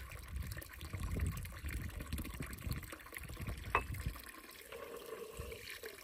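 Spring-fed stone fountain (çeşme) with water trickling and running steadily, with one short click about four seconds in.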